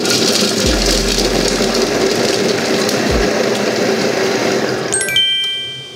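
Chef Robot cooking food processor's blade spinning at speed 5.5 through a five-second chopping cycle on ginger, onion, garlic and carrot, a steady loud whir. It stops about five seconds in, and a chime of steady tones sounds as the cycle ends.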